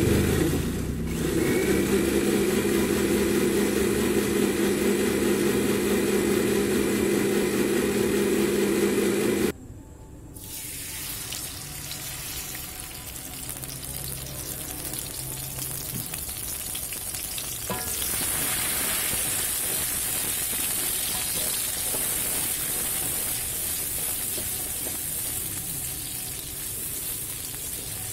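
Electric blender motor running steadily as it grinds a spice paste, dipping briefly about a second in and cutting off about a third of the way through. Then the ground spice paste sizzling as it fries in hot oil in a wok and is stirred with a wooden spatula, the sizzling growing louder about two-thirds of the way through.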